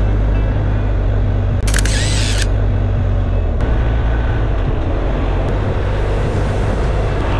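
Motorcycle engine running steadily at road speed, with wind and road noise. A brief high-pitched sound cuts in about two seconds in.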